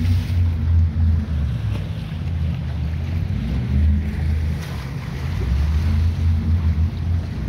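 Wind rumbling on the microphone over choppy boat-wake waves washing and splashing against a lakeside seawall.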